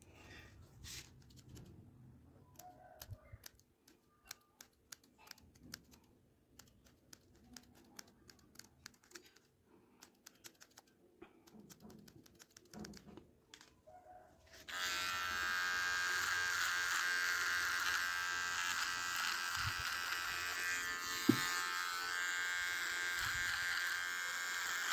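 Faint, quick clicks of scissors snipping beard hair, then a little over halfway through an electric hair trimmer switches on and buzzes steadily, much louder, with a single sharp tap a few seconds later.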